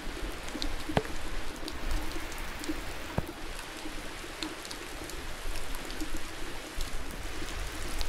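Steady rain falling, with individual drops ticking close by; two sharper drop hits stand out about a second and three seconds in.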